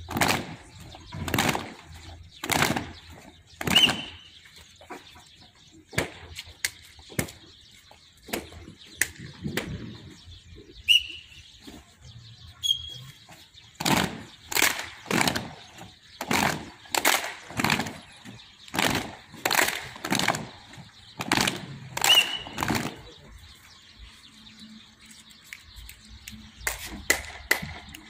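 Rhythmic whooshing and flapping of many cloth streamers swung in unison during a group drill, about one swish a second. A few short bird chirps sound now and then.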